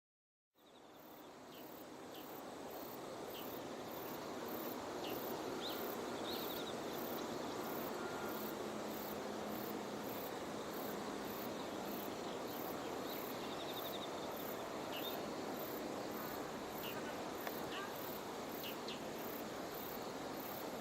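Outdoor ambience with singing insects: a very high-pitched chirp repeating steadily about twice a second, with a few short, scattered calls, over a steady background hiss. It fades in during the first few seconds.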